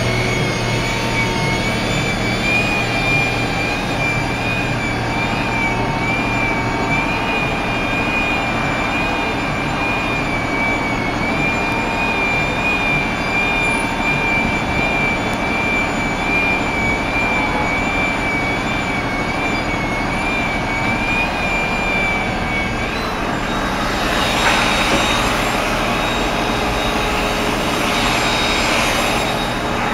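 A steady engine drone with a high, slightly wavering whine over it. About two-thirds of the way through, the whine drops out and a broad rushing noise swells for several seconds.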